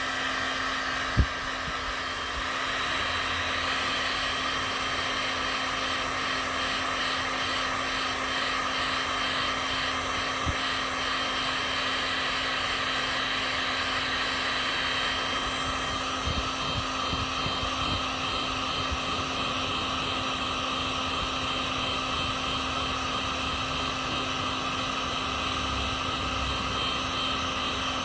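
Electric heat gun blowing steadily at full power, heating a solder seal connector so it shrinks and the solder melts. A single light knock about a second in.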